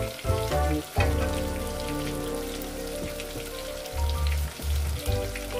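Firm tofu cubes deep-frying in a pot of hot oil, a steady crackling sizzle, with background music playing over it.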